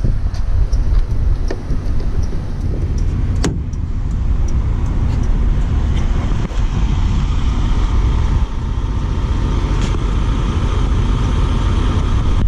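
A vehicle's steady low rumble with wind on the microphone, and faint regular ticks about every half second through the first half.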